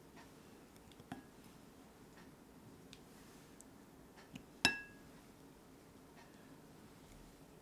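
Wooden chopsticks clinking against a ceramic plate as a piece of roasted pepper is set down. There is a light clink about a second in and a louder, ringing clink just under five seconds in, with faint small ticks between.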